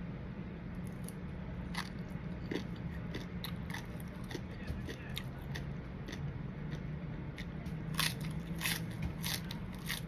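Close-up crunching and chewing of som tam papaya salad with fresh shrimp: irregular crisp crackling bites, more frequent and louder in the last couple of seconds, over a steady low hum.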